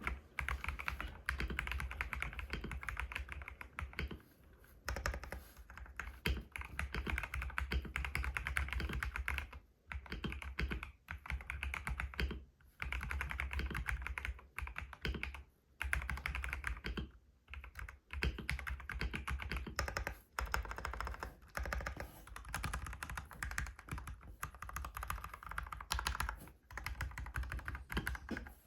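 Typing on a Feker IK75 compact mechanical keyboard with Gateron Pro Yellow linear switches: fast runs of keystrokes broken by short pauses every few seconds.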